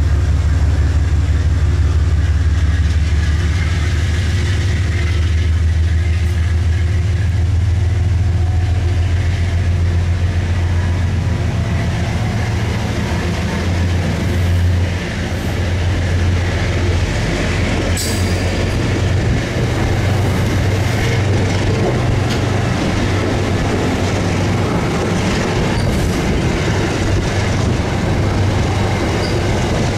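Amtrak passenger train of Amfleet cars rolling past: a steady low rumble of wheels and running gear, heaviest in the first half, with scattered clicks of wheels over the rails and one sharp click about 18 seconds in.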